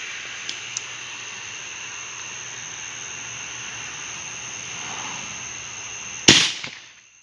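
A single sharp firework bang a little over six seconds in, dying away over about half a second, heard over a steady high-pitched background drone.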